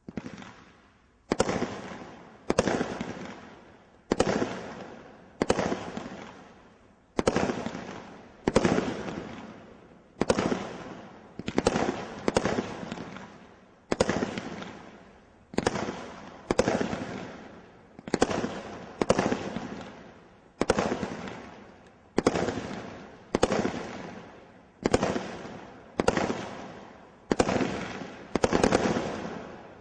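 Multi-shot firework cake firing a steady series of about twenty shots, roughly one every second and a half, each a sharp bang that dies away over about a second.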